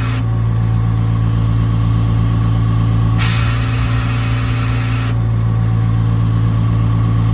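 Coin-operated tire air compressor running with a steady loud hum, with a hiss of air that cuts off just after the start and comes back for about two seconds a little past three seconds in.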